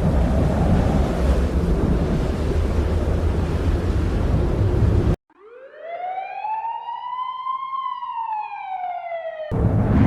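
Loud rumbling wind noise, a tornado roar sound effect, cuts off abruptly about five seconds in. An outdoor tornado warning siren then gives a single wail, rising and slowly falling, before the wind roar cuts back in near the end.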